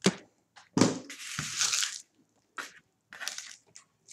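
Sealed trading-card packs handled and set down in stacks: crinkling foil wrappers with a few short knocks, the longest crinkle about a second in.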